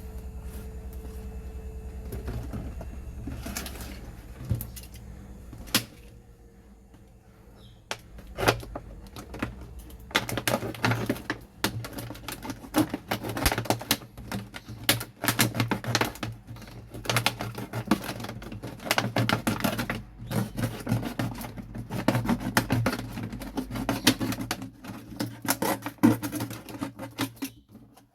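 Plastic bottles being handled and worked: many irregular clicks and taps, sparse at first and coming thick and fast from about ten seconds in. A low steady hum runs under the first six seconds.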